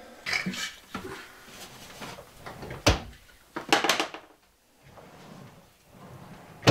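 Handling sounds of cabinet work: a string of sharp knocks and clicks, the loudest about three seconds in and a quick cluster about four seconds in, as a bar clamp and cordless drill are put aside and a plywood drawer is moved on its metal slides.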